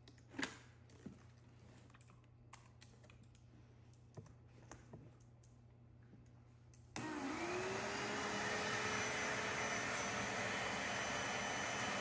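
Scattered clicks and knocks of the cleaner's plastic parts and hose being handled, then about seven seconds in the Bissell Little Green portable carpet and upholstery cleaner switches on: its suction motor spins up with a quickly rising whine and settles into a steady loud running noise.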